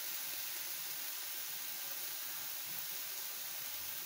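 Chopped vegetables with sauces and spices sizzling steadily in a nonstick frying pan as they are sautéed, an even soft hiss with no stirring.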